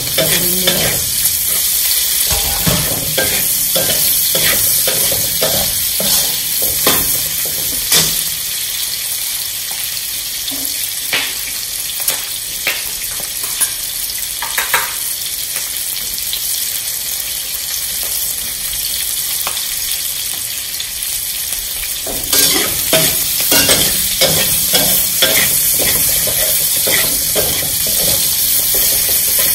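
Onion and bell pepper pieces sizzling in hot oil in a metal wok, stirred with a metal spatula that scrapes and clinks against the pan. The clinks thin out through the middle and come thick again in the last several seconds.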